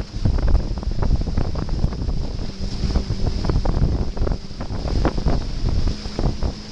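Wind buffeting the microphone on a banana boat towed at speed, with water rushing and splashing around it and the tow boat's engine running faintly underneath.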